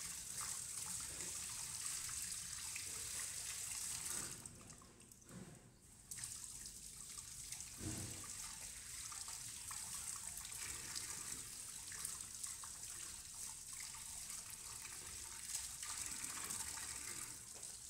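Tap water running steadily into a steel sink as cut fish pieces are rinsed under the stream. The flow sound drops away briefly about four seconds in, and a single dull knock comes about eight seconds in.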